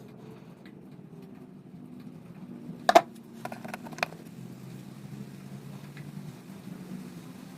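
Small parts and hand tools being handled at a workbench while a thermal fuse is fitted into crimp connectors: one sharp click about three seconds in, then a few lighter clicks, over a low steady hum.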